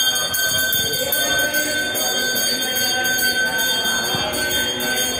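Temple bell rung continuously, a steady high ringing that does not let up, over voices.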